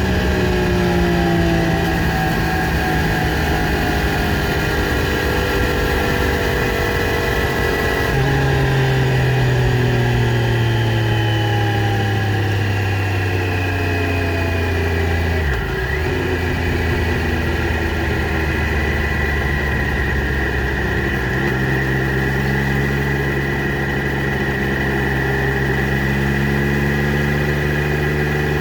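Triumph Street Triple RS 765 cc three-cylinder engine running through its stock exhaust. Its pitch falls slowly over the first half, dips briefly about halfway through, then holds steady.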